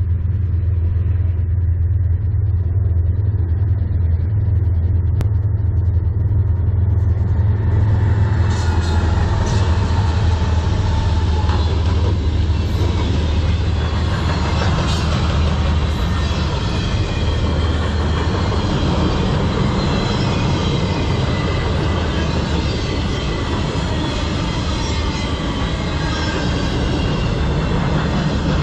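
Diesel locomotives of a CN manifest freight train approaching with a steady low engine drone, which gives way about eight seconds in to the loud, continuous rush and clatter of the freight cars' steel wheels rolling past close by.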